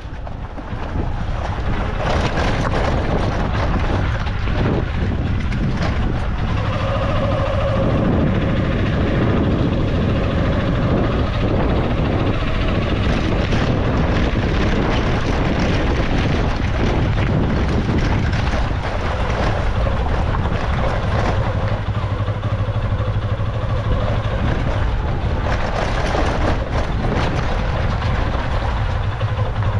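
Motorcycle running steadily while being ridden, its engine hum mixed with wind rushing over the microphone.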